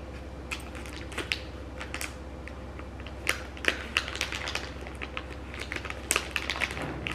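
Scattered light clicks and taps of small plastic items, lip gloss tubes and their packaging, being handled by gloved hands. The clicks come irregularly and grow busier about halfway through, over a steady low hum.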